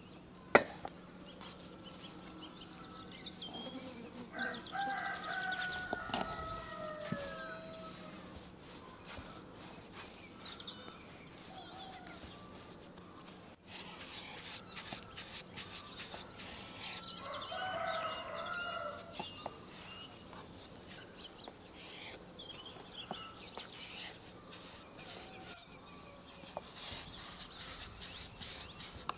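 A rooster crowing twice, two long calls about five and seventeen seconds in, with small birds chirping. A single sharp knock just after the start is the loudest sound.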